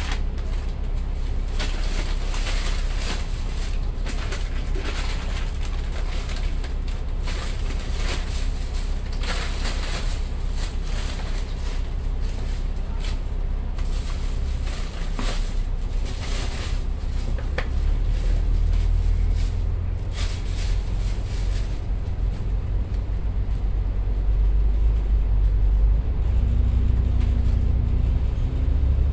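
Double-decker bus's diesel engine idling at a standstill, with short noisy streaks over it. About 18 seconds in, the engine's low rumble grows louder as the bus pulls away, and a low whine sets in and starts to rise near the end as it gathers speed.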